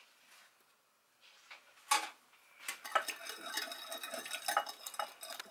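A small wire whisk stirs rapidly in a glass bowl, its wires clicking and rattling against the glass as fresh yeast is dissolved in warm water. A single clink comes about two seconds in, just before the fast whisking starts.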